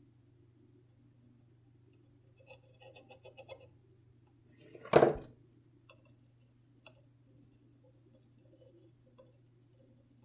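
Small hand tools clicking and tapping on a workbench during desoldering of a surface-mount chip: a run of light clicks, then one louder knock about five seconds in, then faint scattered ticks, over a low steady hum.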